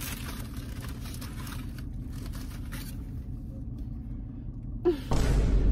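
Steady low rumble of a car heard from inside its cabin, with faint crinkling of a food wrapper in the first few seconds. Near the end comes a louder, short rustle and bump.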